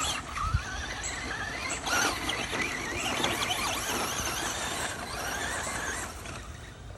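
Electric motor and geartrain of a two-wheel-drive RC short-course truck whining as it is driven, the pitch rising and falling with the throttle over a steady hiss.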